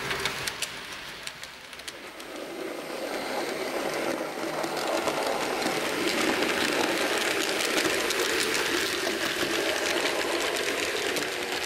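H0 scale model freight train rolling past on the layout's track: many fine clicks of the wheels over the rails, growing louder about two seconds in as a line of boxcars passes close, then easing off near the end.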